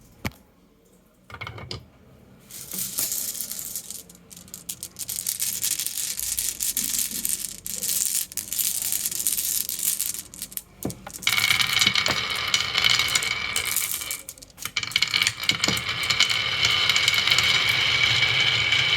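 Marbles rolling and clattering down a marble run track: a single click, then a dense, continuous rattle that grows louder about eleven seconds in.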